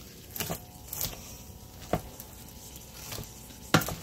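Wooden spoon stirring caramel-coated popcorn in an enamel roasting pan, with a few sharp knocks of the spoon against the pan; the loudest comes near the end.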